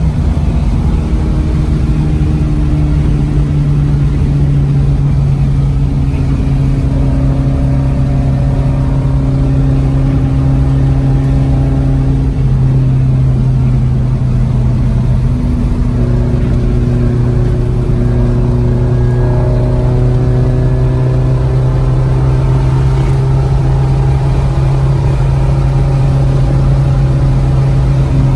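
VW Beetle's Type 4 2.7-litre air-cooled flat-four with a 4-2-1 exhaust cruising at highway speed, heard from inside the cabin as a steady drone over road noise. The engine pitch dips briefly twice around the middle, then holds steady again.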